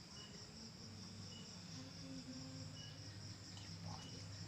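Crickets chirping in a steady, evenly pulsing trill, with a faint low hum beneath.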